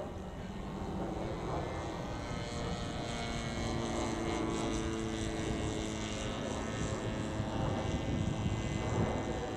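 106-inch Hangar 9 Piper Cub radio-control plane flying overhead: the steady drone of its motor and propeller, growing louder after the first second or so as it comes closer.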